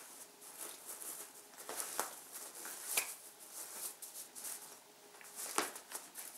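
Cat scuffling with a fabric valerian pillow on a carpet: irregular soft rustling and scratching, with sharper clicks about two, three and five and a half seconds in.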